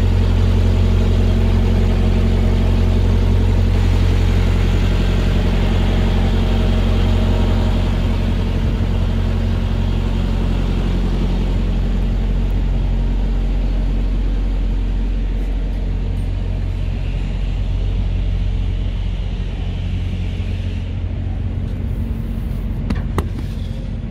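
Semi truck's diesel engine idling steadily with a low hum, a little quieter in the second half, with a couple of light taps near the end.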